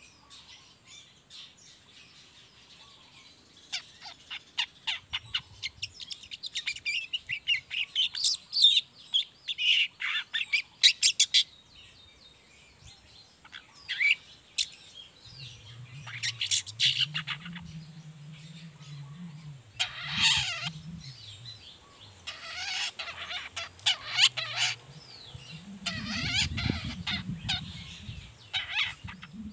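Juvenile long-tailed shrike (cendet trotol) singing a rapid twittering chatter (ngriwik), the practice song of a young bird learning its material. It comes as one long run of quick high notes, then several shorter bursts. A faint low hum joins about halfway through.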